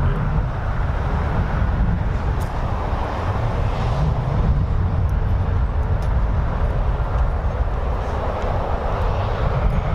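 Steady low rumble of road traffic, with a few faint light clicks.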